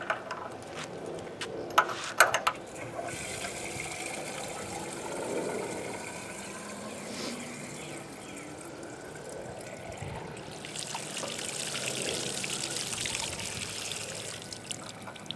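Water pouring and trickling into the casing of a semi-trash water pump, priming it before a test start, after a few sharp handling clicks at the start; the pour grows stronger after about ten seconds.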